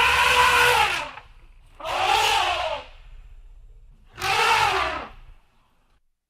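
Elephant trumpeting: three loud, brassy calls of about a second each, each rising then falling in pitch, with short pauses between them.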